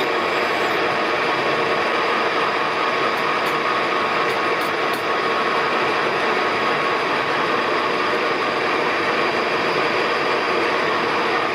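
Colchester metal lathe running steadily under power, a constant gear whine over dense mechanical noise.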